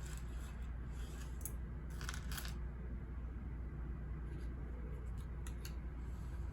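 Steady low ambient white noise, with several faint short rustles and clicks on top; the longest rustle comes about two seconds in.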